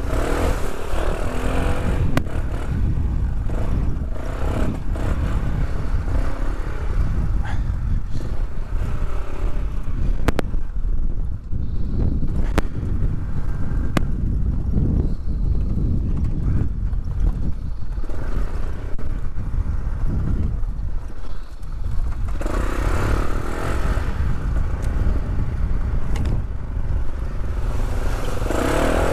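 Polaris ATV engine running steadily as the quad is ridden, with a heavy low rumble and a few sharp clicks; the engine grows louder for the last several seconds.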